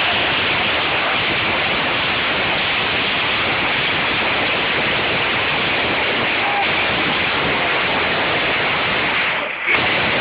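Firework fountain burning with a steady, loud hiss of spraying sparks, dipping briefly near the end.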